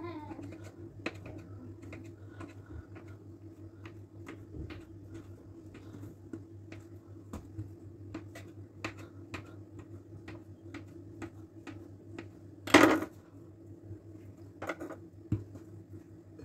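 Kitchen knife tapping on a wooden cutting board as it slices through a rope of soft dough, a short tick with each cut, every half second or so. About thirteen seconds in there is one louder clatter, and a steady low hum runs underneath.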